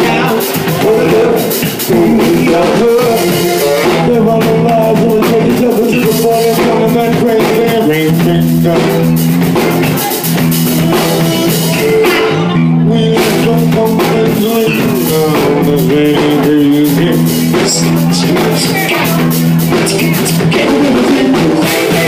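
Band music with drum kit and guitar, played steadily and loud.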